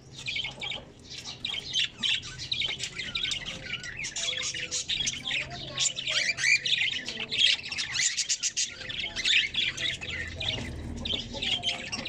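Aviary birds, cockatiels among them, chirping and squawking all together in a dense, overlapping chatter of short calls.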